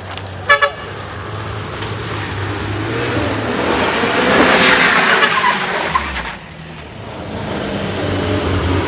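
Heavy diesel engine working hard, building to a peak and then dropping off suddenly about six seconds in, with a couple of short air hisses, before it picks up again. Two short beeps sound near the start.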